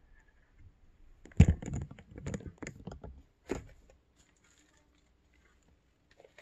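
Handling noise: a sharp thump about a second and a half in, then light knocks and rustles for about two seconds, and one last knock just before the halfway point.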